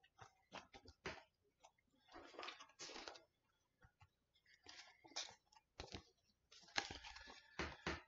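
Paper pages of a picture book rustling and crinkling as they are handled and turned over by hand, in short irregular rustles, the loudest near the end.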